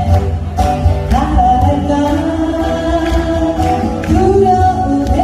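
Two acoustic guitars strumming chords while a woman sings a slow ballad melody into a microphone, holding long notes.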